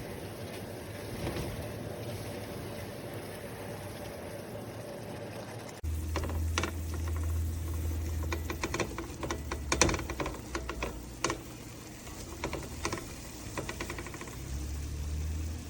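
Steady room noise, then a run of irregular light metallic clicks and knocks from a stainless steel sauté pan being handled on a ceramic stovetop, with one louder knock in the middle.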